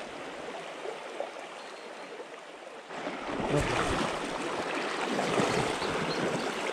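River water flowing fast in high water, a steady rush that gets clearly louder and deeper about three seconds in.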